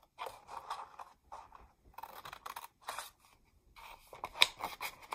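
Scissors cutting through a sheet of patterned paper: a run of short snips, a brief pause a little past three seconds in, then more snips with the sharpest, loudest one near the end.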